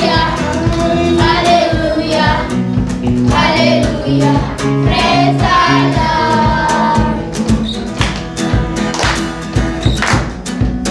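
Children's Sunday school choir singing a gospel song over backing music with bass and a steady beat. The voices drop out about two-thirds of the way through, leaving the instrumental backing with sharp drum hits.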